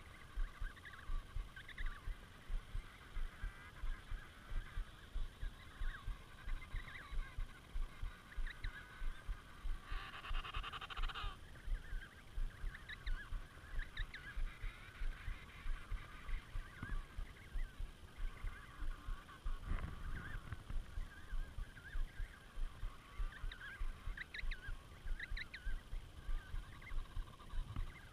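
Emperor penguin colony calling: many trumpeting calls overlap, with one loud, close call about ten seconds in. A rapid low thumping, two or three beats a second, runs beneath the calls.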